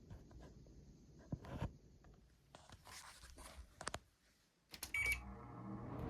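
A few handling clicks and knocks, then about five seconds in a short electronic beep from a 2004 Daewoo DWC-054R window air conditioner's control panel, after which the unit starts with a low hum.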